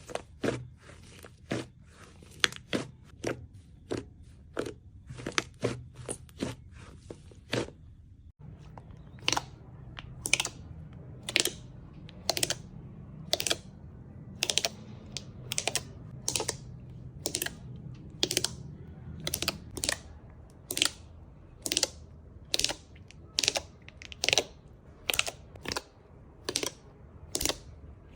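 Slime being pressed and worked by hand, giving a regular series of crisp clicking pops, about one or two a second. The background changes abruptly about eight seconds in, and the clicks come a little slower after that.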